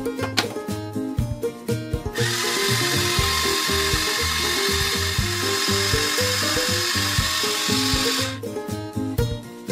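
Background music with a bouncy beat. About two seconds in, a loud, steady whirring mechanical noise joins it for about six seconds, then cuts off.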